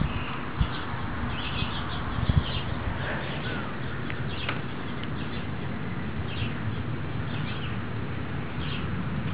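Birds chirping again and again over a steady background hiss, with a couple of low thumps about half a second and two seconds in.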